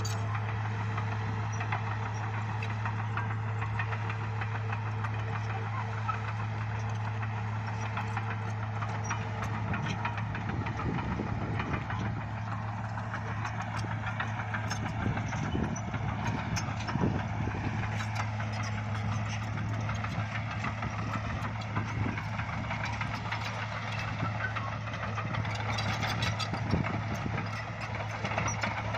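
Bulldozer's diesel engine running steadily, with scattered short knocks and clanks, loudest in the middle stretch.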